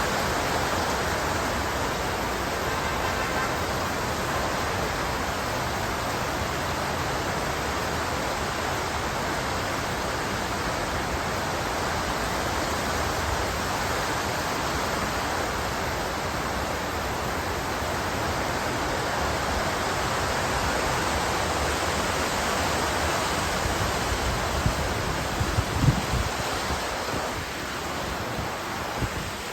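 Heavy squall rain pouring down in a steady hiss. A few brief low thumps come about 25 seconds in.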